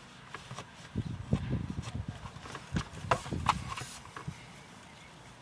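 A run of irregular light knocks and taps, like objects being handled or set down, from about a second in to about four seconds in.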